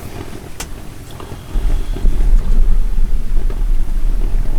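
A loud low rumble starts abruptly about a second and a half in and keeps going, with a faint click just before it.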